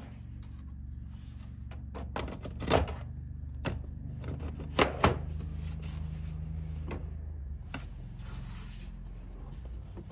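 Plastic tower fan housing cover being fitted back over the fan body by hand: a string of knocks and clacks of plastic on plastic, loudest once about three seconds in and twice about five seconds in, over a steady low hum.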